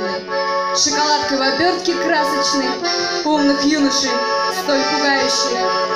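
Piano accordion playing a melody with chords, with a woman singing along into a microphone.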